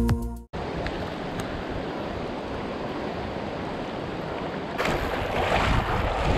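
Shallow river water rushing over a gravel riffle: a steady rushing hiss that grows louder about five seconds in.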